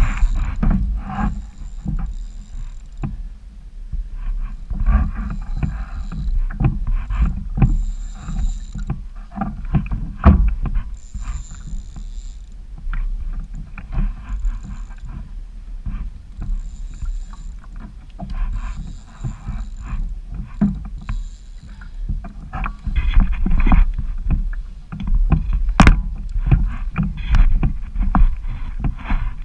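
Water slapping and splashing against a fishing kayak's hull with irregular knocks, over a steady low rumble of wind on the microphone; the splashing grows busier near the end.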